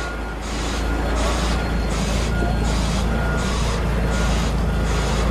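A truck's hissing reversing alarm pulsing about every three-quarters of a second, with a faint tone in each pulse, over the low, steady running of its diesel engine as it backs up.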